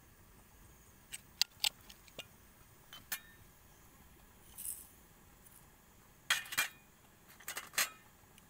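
Sharp clinks and taps of a small ceramic bowl and a metal spoon against a clay mortar, some with a short ringing tail, in two clusters, along with a brief hiss of white seasoning being poured from the bowl into the mortar.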